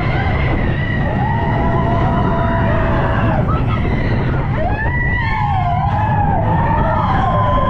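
Big Thunder Mountain Railroad mine-train roller coaster running along its track with a steady heavy rumble. Long high-pitched wails ride over it, some held and some wavering, in the first half and again from about five seconds in.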